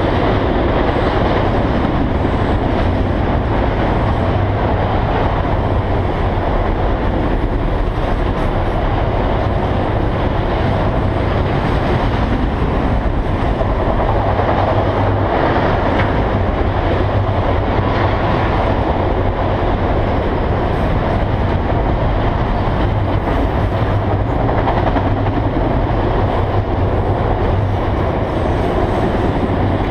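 Freight train of autorack cars rolling past: steady noise of steel wheels on the rails, even in loudness throughout.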